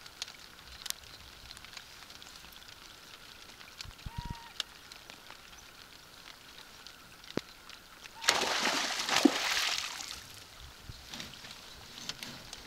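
Quiet lakeside ambience with a few light ticks and one short bird call about four seconds in, then a loud rustling, handling noise lasting about two seconds, from about eight seconds in.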